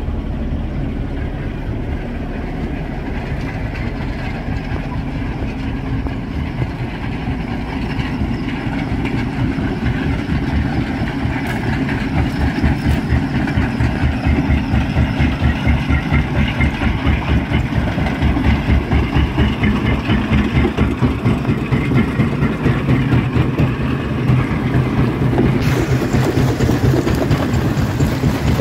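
Belt-driven jaw stone crusher running, with a rapid, even pounding that grows stronger partway through. Near the end a harsher grinding of rock between the jaws joins in.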